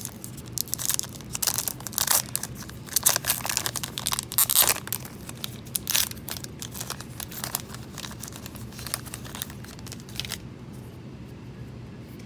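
A Topps Heritage baseball card pack wrapper being torn open and crinkled in the hands: a rapid run of crackles and rustles that stops about ten seconds in, leaving a low steady hum.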